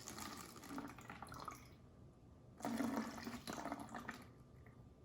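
Hydrogen peroxide being poured into a bottle in two pours: one in the first couple of seconds, then a louder one about two and a half seconds in.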